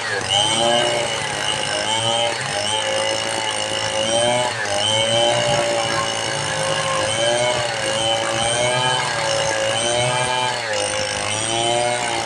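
Two-stroke chainsaw running, its pitch rising and falling about once a second as the engine speeds up and bogs under load while cutting teak.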